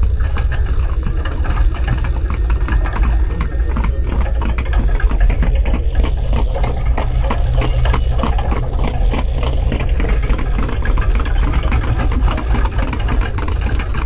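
Sound effect of a horse-drawn wooden carriage passing: a dense, irregular clatter of hooves and wooden wheels over a steady low rumble.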